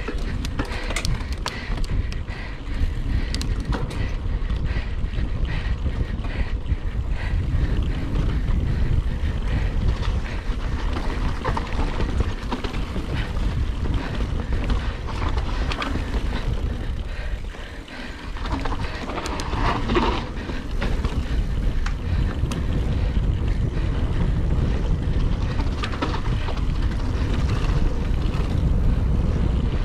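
Wind buffeting the microphone of a camera riding on a mountain bike at race pace, with frequent clicks and rattles from the bike on the trail. The noise eases briefly a little past halfway, then picks up again.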